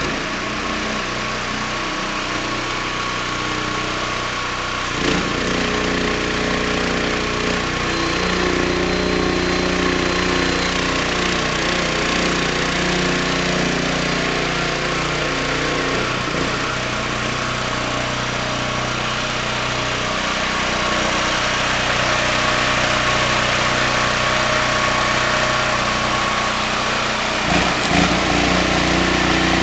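Engine of an engine-driven CO2 welding generator running at a steady speed, with a dense steady hiss over it and a couple of brief knocks near the end.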